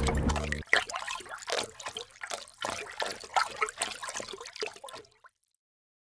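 A music track ends under a second in. Then comes water lapping and splashing in small, irregular splashes and trickles, which cuts off a little after five seconds in.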